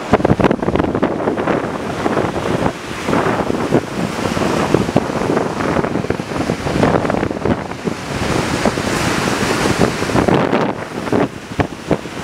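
Wind buffeting the microphone in uneven gusts, over the rush of rough surf breaking on a pebble beach.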